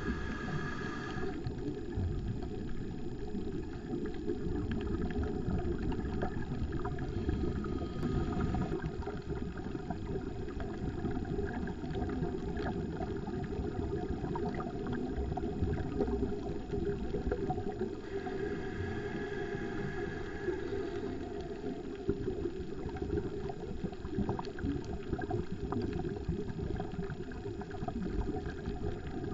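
Muffled underwater rumble and bubbling of scuba breathing through a regulator, heard through the camera's waterproof housing, with a faint higher hiss-like tone coming in briefly three times, about every eight to ten seconds.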